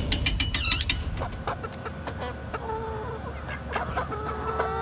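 Backyard chickens clucking: a run of quick, sharp clucks in the first second, then short calls, with a longer drawn-out call starting near the end.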